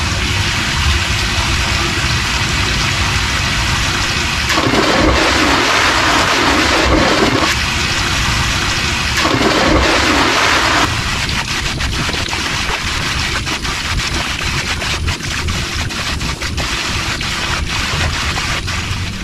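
Water spraying or pouring in a steady rushing hiss. It grows louder twice, each time for a couple of seconds, as the water cools someone down.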